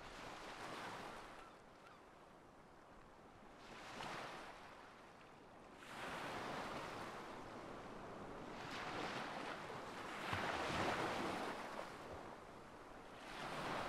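Sea surf: waves breaking and washing in, rising and falling in faint swells every few seconds.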